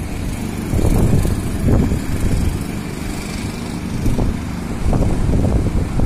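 Wind buffeting the phone's microphone: a loud, low rumble that swells and dips in gusts.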